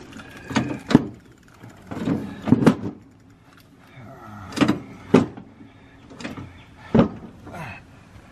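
Irregular sharp metallic knocks and clanks from a riding lawn mower's cutting deck being handled and worked on from underneath, each with a short ring. About eight of them, some in quick pairs.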